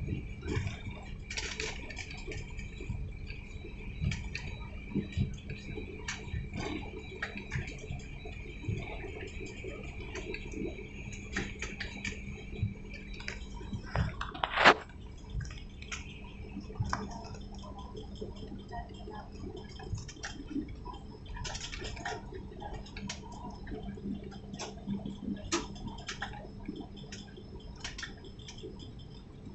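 Airliner cabin noise while the aircraft rolls on the ground: a steady engine hum with a high whine that stops about halfway, scattered small clicks and rattles, and one sharp knock about fifteen seconds in.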